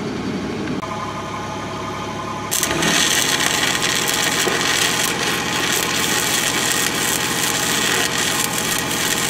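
A steady machine hum, then about two and a half seconds in a stick-welding arc strikes and burns steadily with a continuous crackling hiss as a bead is laid into the gouged crack in the dozer blade's steel swivel boss.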